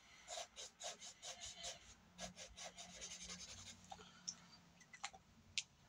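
Faint drawing strokes scratching on paper, quick and even at about four a second, thinning after about three seconds into a few separate light ticks.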